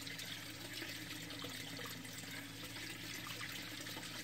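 Thin, steady trickle of water running from a stuck U-siphon's outlet pipe into the tank water. The siphon sits at equilibrium, draining only as fast as water flows in while it builds pressure, not yet fired.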